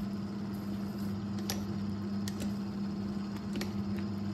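A steady low hum from the kitchen, with a few light ticks of chopsticks against a stainless-steel pot as instant noodles are stirred and lifted.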